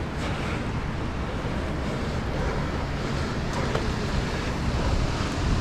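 Steady rushing roar of water pouring over a spillway, with wind buffeting the microphone.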